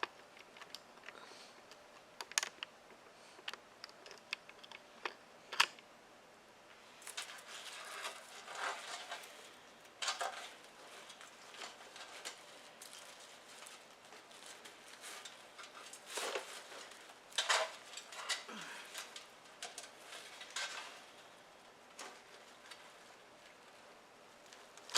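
Rustling of ribbon being handled and tied, with scattered small clicks and taps in the first few seconds.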